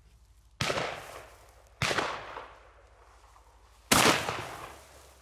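Three loud shotgun shots fired at deer, each trailing off in an echo. The second comes about a second after the first, and the third about two seconds after that.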